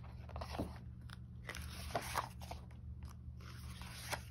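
Pages of a picture book being turned and handled: scattered crinkles and rustles of paper, with a sharp tap near the end.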